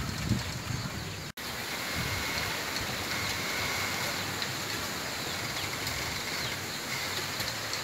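Wind rustling through bamboo leaves in a steady hiss, with faint bird chirps. The sound drops out for an instant about a second in.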